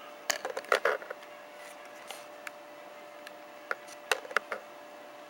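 Cardboard and plastic packaging of a mouse being handled and opened: a cluster of sharp clicks and short rustles about half a second in, then a few scattered clicks near the end. A faint steady hum sits underneath.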